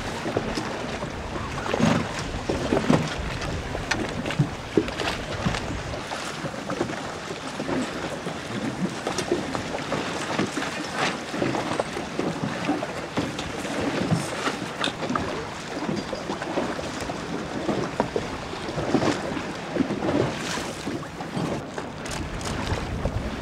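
Wind buffeting the microphone over choppy water, with small waves splashing and slapping at irregular moments throughout.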